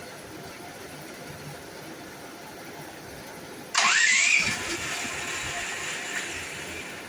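Duromax XP13000HXT tri-fuel generator engine starting: about halfway through, a sudden rising whine, then a rush of engine noise that eases off over the next few seconds.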